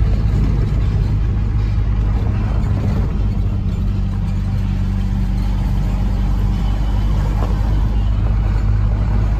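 A vehicle driving on a gravel road, heard from inside the cab: a steady engine drone with tyre rumble over the gravel.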